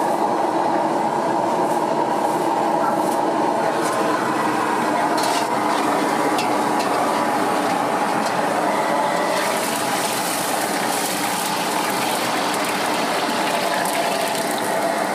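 Steady roar and hum of a street-food wok stove's gas burner and fan, with a few short clanks about five seconds in. A brighter hiss joins about nine seconds in.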